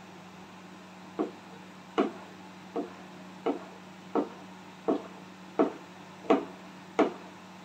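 Wooden spoon knocking against the side of a metal cooking pot as thick haleem is stirred, a sharp knock about every 0.7 seconds, nine in all, starting about a second in, over a faint steady hum.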